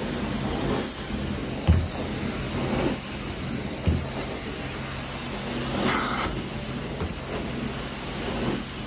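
Carpet-cleaning extraction wand pulling air and water out of the carpet with a steady rushing hiss over a low machine hum. Two dull thumps come about two seconds apart as the wand is worked in strokes, and a brief louder hiss comes about six seconds in.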